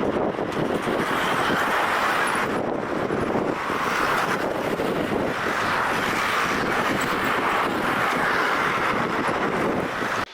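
A steady, even rushing noise that swells slightly every second or two and cuts off abruptly at the end.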